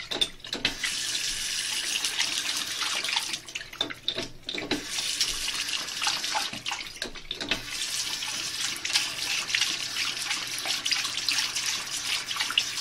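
Bathroom sink faucet running, the water splashing as a dog drinks from the stream. The flow drops away for about a second, around four seconds in, then runs again.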